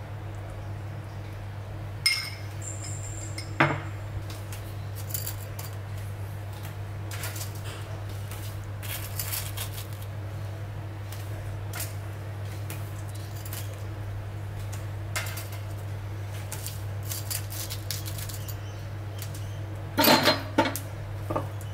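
Metal kitchen utensils, a spoon and then a pair of tongs, clinking and clicking as food is handled, with a cluster of louder clacks near the end. A steady low hum runs underneath.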